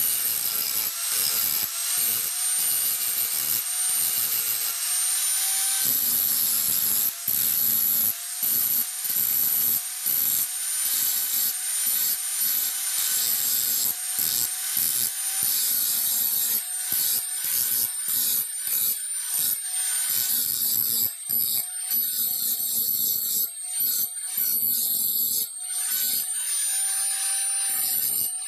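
Electric grinder running while the edge of a steel wood chisel is ground against it. The motor's whine wavers in pitch under a rough grinding hiss, which breaks off briefly many times as the blade is lifted and pressed again.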